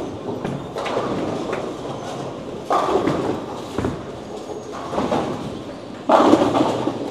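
Bowling alley lane noise: bowling balls rolling down the wooden lanes and pins crashing. One loud crash comes a little under three seconds in and the loudest just after six seconds.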